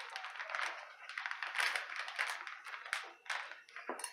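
Plastic shredded-cheese bag crinkling and crackling as it is handled by its top. Near the end a spoon clinks against a ceramic bowl.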